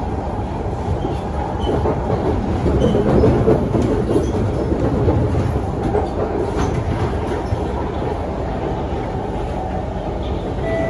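A Kawasaki C151 MRT train heard from inside the passenger car as it runs between stations: a steady rumble of wheels on rail with a few faint clicks. It swells louder a couple of seconds in, then settles.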